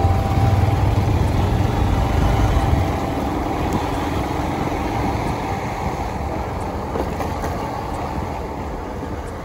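Motor vehicle noise on a road: a low rumble with road hiss, loudest over the first three seconds, then slowly easing off.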